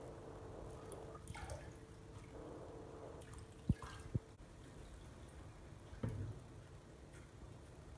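Water splashing and dripping softly as lettuce leaves are rinsed by hand in a pot of water and lifted into a plastic bowl. Two short knocks come a little before halfway.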